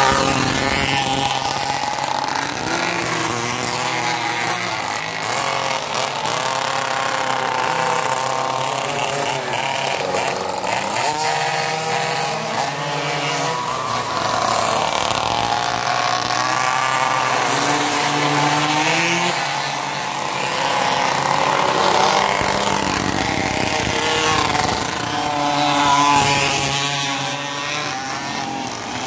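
Small two-stroke pocket mini bike engines buzzing, their pitch rising and falling over and over as the riders rev and ease off through the corners.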